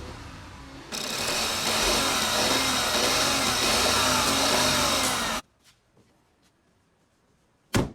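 BMW 318i engine running with a misfire, getting suddenly loud about a second in and then cutting off abruptly. A single loud thump comes near the end.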